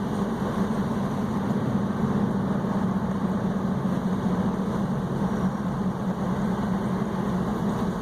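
Car driving slowly, heard from inside the cabin: a steady low engine hum with road noise.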